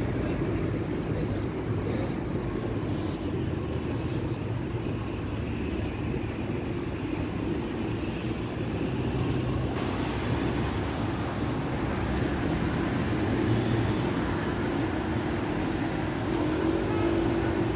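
Steady city road traffic: a continuous low rumble of passing cars and buses.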